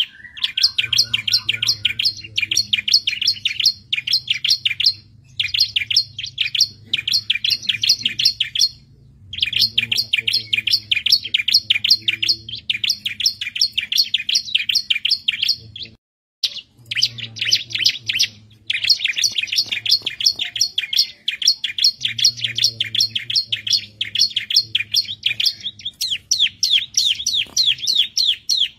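Bar-winged prinia (ciblek) singing: long runs of rapid, high chirps repeated several times a second, broken by short pauses.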